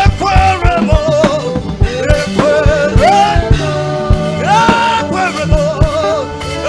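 Live praise-and-worship band music with a steady drum beat, under a melody that slides and wavers in pitch, with singing.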